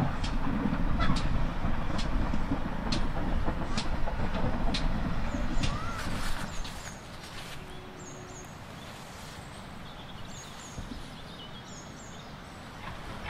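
A GWR steam tank locomotive and coach running past: a low rumble with sharp clicks about once a second, which fades about six and a half seconds in. Small birds chirping remain after the fade.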